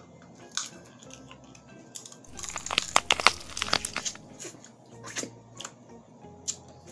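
Crab leg shells cracked and snapped apart by hand close to the microphone: a dense flurry of sharp cracks about two and a half seconds in, with scattered single clicks before and after.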